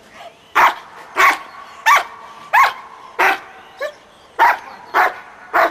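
Young German Shepherd barking repeatedly at the protection-training helper, about eight loud barks in a steady rhythm roughly two-thirds of a second apart.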